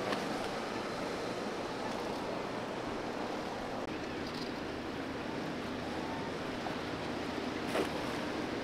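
Steady wash of waves and wind in an inlet, with a faint, even hum of a boat's engine underneath. A short knock sounds near the end.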